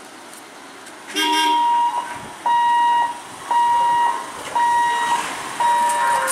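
Electric warning hooter at a railway level crossing, sounding a steady high beep about once a second as the boom barriers lift, starting about a second in. A lower horn note joins the first beep.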